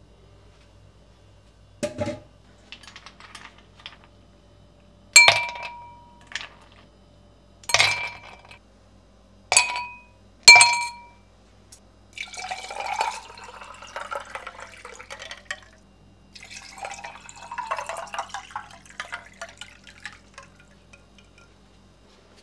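Glass and ceramic dishes clinking as they are set down: several sharp ringing clinks, then two longer stretches of clattering as dishes are handled together.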